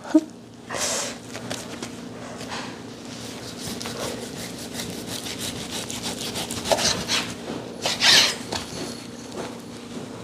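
Knife sawing back and forth through raw beef sirloin, a steady run of short rubbing strokes, with louder strokes about a second in and about eight seconds in.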